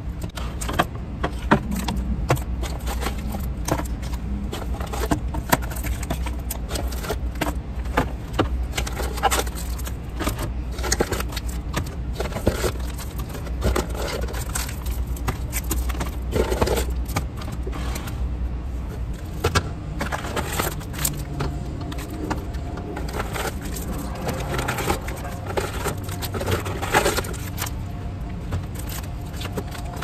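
Capri Sun foil drink pouches crinkling and clicking as they are handled and set into a plastic bin in a fridge. Under them runs a steady low rumble from construction work.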